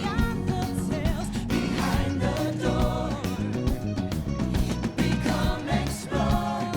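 Upbeat theme song with a group of voices singing over a band with a steady beat.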